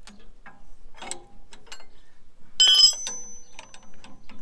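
Steel spanner clicking and clinking on the clutch shaft pinch bolt of a Ferguson TE20 as it is done up tight, with one loud ringing clang of metal about two and a half seconds in.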